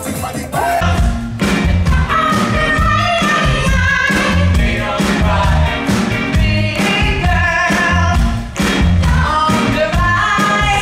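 Live band music with a group of men singing together over drums, bass and keyboard, with a steady beat. The music changes to this song about a second in.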